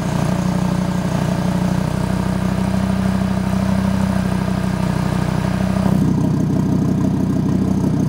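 Audi RS3 8V's turbocharged 2.5-litre five-cylinder idling steadily through a Bull-X EGO-X valved 3.5-inch cat-back exhaust, with the exhaust valve closed so the gas is routed through the muffler chambers. About six seconds in the sound changes as the valve-open section begins.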